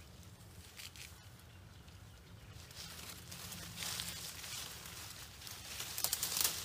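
Leafy branches rustling and crackling in irregular bursts as someone pushes through or handles the shrubs, with the loudest crackles about six seconds in, over a steady low rumble.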